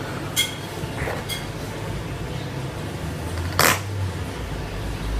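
Plastic Play-Doh toy pieces being handled: a few light clicks, then one louder knock about three and a half seconds in, over a steady hiss.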